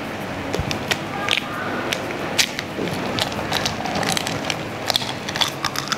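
A raw egg being cracked open by hand over a small glass bowl: scattered sharp clicks and crackles of the shell breaking, with light taps against the spoon and glass.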